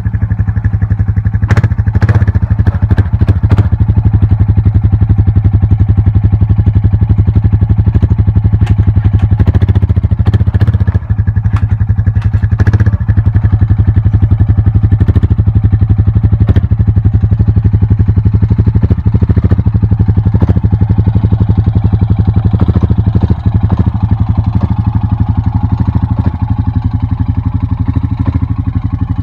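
Muddy ATV's engine running steadily at low speed close by, a fast even putter, as the quad creeps forward; a few clanks in the first few seconds, and the sound eases a little near the end as it moves away.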